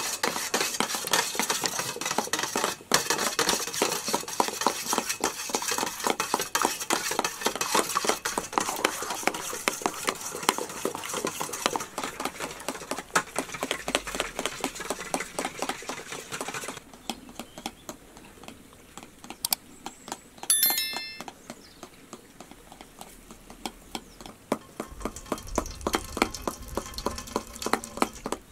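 Raw eggs being beaten with a spoon in a stainless steel bowl: rapid, continuous clinking and scraping strokes of metal on metal. About 17 seconds in the beating stops and only softer, sparser taps follow, with one brief high-pitched chirp a few seconds later.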